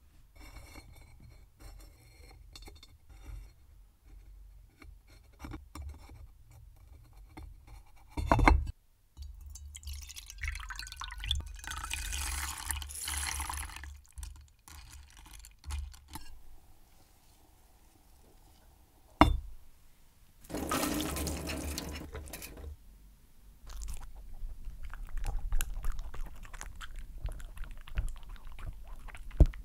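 Liquid poured into a container twice, the first pour rising in pitch as it fills. Two sharp knocks, about eight and nineteen seconds in, with fine crackling near the end.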